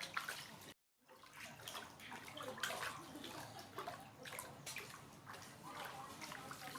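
Bath water splashing and sloshing as a baby monkey is washed, with many small irregular splashes and drips. The sound cuts out completely for a moment just under a second in.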